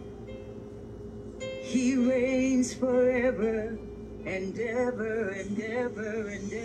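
Worship song: a solo voice sings long wavering, ornamented notes over a steady held instrumental chord, with the voice coming in about one and a half seconds in.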